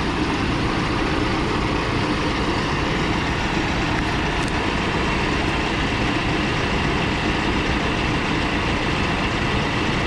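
Mahindra 7095 PST tractor's common-rail diesel engine idling steadily.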